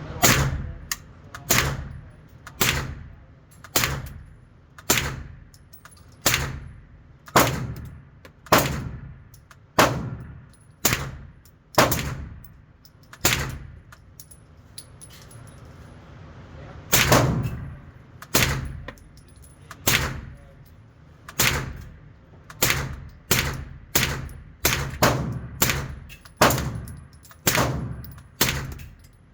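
PTR 9KT rifle with a Gemtech suppressor firing single shots, about one a second, with a pause of about three seconds midway; each shot leaves a short ringing tail.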